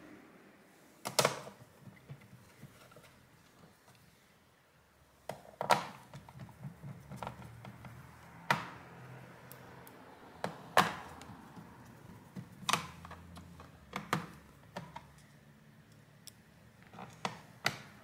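About a dozen scattered sharp clicks and light knocks on a laptop's plastic bottom case as its screws are put back in, with several of them in quick pairs.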